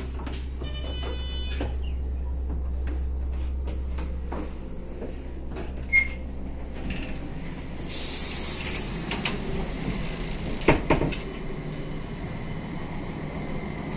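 Passenger train carriage running, with a steady low rumble throughout. About a second in comes a short electronic beep; around the middle an interior door's lever handle clicks, followed by a hiss and a couple of knocks as the door is worked.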